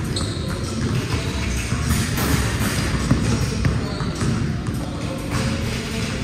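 Basketballs bouncing on an indoor hard court, a scatter of thuds echoing in a large hall.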